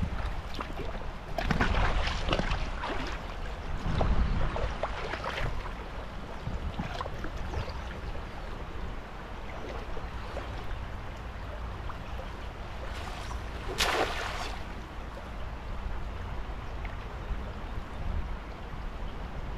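Shallow river water running steadily, with bursts of splashing, the loudest a short sharp splash about two-thirds of the way through, as a cast net is worked in the water.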